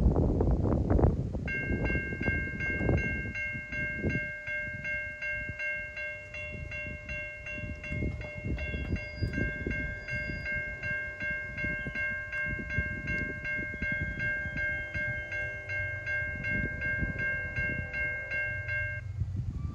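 Safetran type 3 electronic crossing bell ringing at an even pace of about two strokes a second, starting about a second and a half in and stopping near the end as the gates reach horizontal. Wind buffets the microphone at the start.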